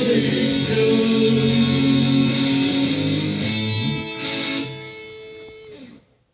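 Closing bars of a guitar-band demo song: sustained guitar chords ring, grow quieter after about four seconds, then fade and stop at about six seconds.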